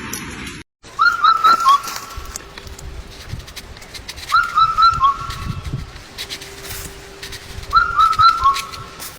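A bird singing a short phrase of four or five clear whistled notes, three times, about three and a half seconds apart, over a faint steady background hum.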